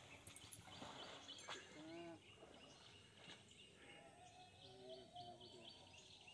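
Near silence in open air, with a few faint, distant calls that rise and fall in pitch.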